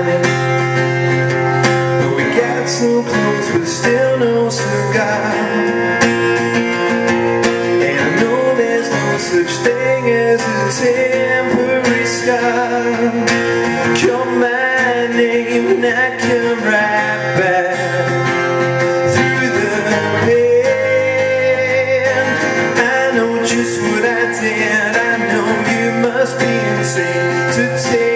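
A man singing a song while strumming chords on an acoustic guitar, with a steady strumming rhythm under the voice.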